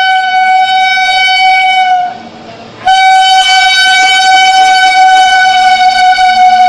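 Indian Railways WAG-5P electric locomotive's horn, very loud, on one steady high note. It gives a blast of about two seconds, breaks off briefly, then sounds a second, longer blast that is still going at the end.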